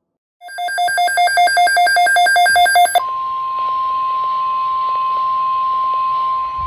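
Rapid electronic alarm beeping, about ten beeps a second, for roughly two and a half seconds. It gives way to a steady single tone of about 1050 Hz, held for about three and a half seconds: the NOAA Weather Radio warning alarm tone that comes before an alert message.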